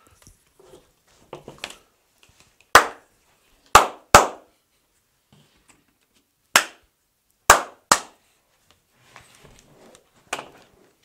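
Six sharp hand claps in two groups of three, a few seconds apart: sync claps made so that the audio from several recorders can be lined up in editing.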